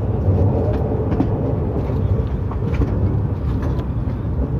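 Narita Express E259-series electric train running, heard from inside a passenger car: a steady low rumble of wheels on the rails with faint scattered ticks.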